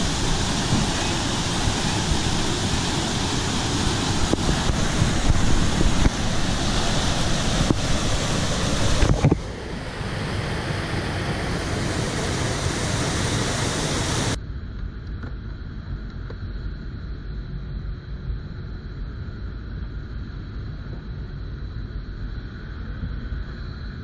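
Rushing whitewater of a mountain creek and waterfall, with wind buffeting the microphone. The sound changes abruptly twice, about nine and fourteen seconds in, and the last stretch is quieter and duller.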